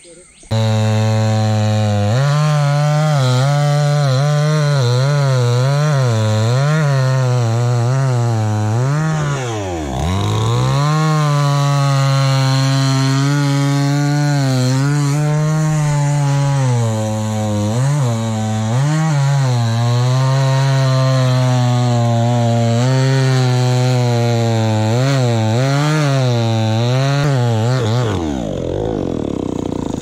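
Two-stroke chainsaw running at high revs while cutting wood, its pitch wavering up and down as it works in the cut. About ten seconds in, the revs drop off sharply and climb back, and the saw cuts off a little before the end.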